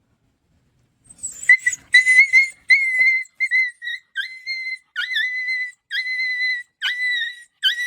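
A puppy whining: about ten high, thin cries in quick succession starting about a second in, each under a second long and held at a steady pitch, many starting with a short dip in pitch.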